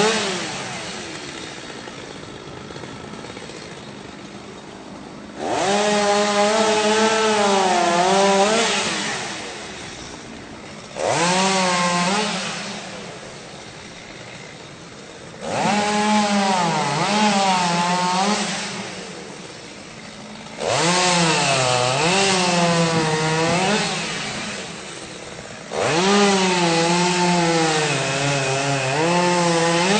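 Chainsaw cutting a tree: five hard bursts a few seconds long, the engine's pitch wavering through each cut, dropping back to a quieter idle between them.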